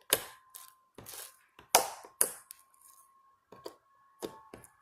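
A series of about ten sharp, irregularly spaced taps and clicks, with a faint steady hum underneath.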